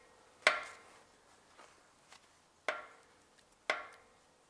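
Three sharp metal-on-metal knocks, each with a short ringing tail: one about half a second in, then two more a second apart later on, as a tool works at a stuck camshaft in a Honda R18A 1.8 cylinder head.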